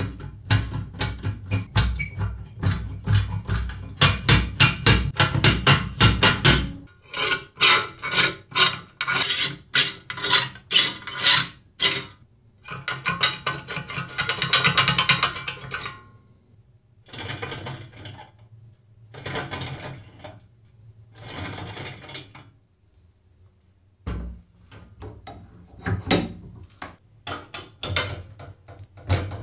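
Rusty steel parts of an old kick scooter being handled and taken apart by hand: quick runs of metallic rattling and scraping, a longer scrape, then separate short clanks and rubs as the wheel and axle nuts are worked.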